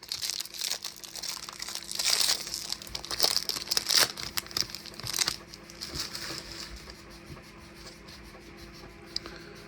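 Wrapper of a 2025 Topps baseball card pack crinkling and tearing as it is opened for about five seconds, then only faint rustling.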